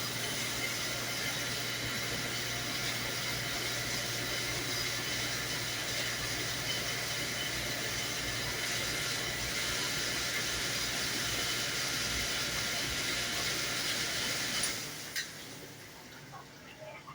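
Commercial dishwasher running a wash cycle: a steady hiss of spraying water over a low pump hum. It cuts off about fifteen seconds in, leaving a few faint clicks and drips.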